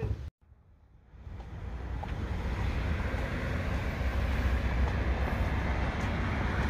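Steady rumble and hiss of wind on the microphone, fading in about a second in after a brief near-silence.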